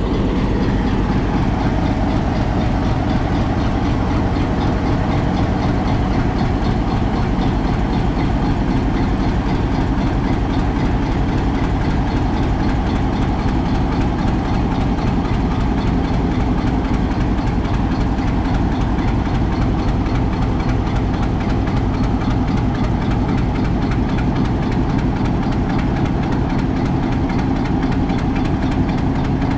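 Diesel-electric locomotive engine idling with a steady, even throb.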